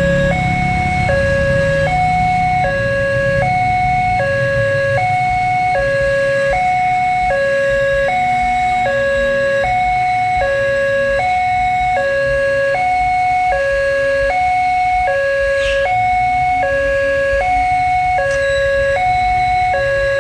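Electronic railway level-crossing warning alarm sounding a steady two-tone ding-dong, a lower and a higher note alternating about every three-quarters of a second. A motorcycle engine is heard passing in the first few seconds.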